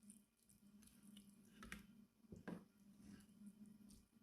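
Near silence: a few faint soft taps and wet handling sounds over a low steady hum, as pork is readied for cutting.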